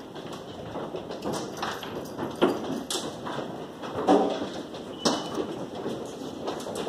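Golf-ball-size hailstones striking, with irregular sharp knocks about once a second over a steady noisy background.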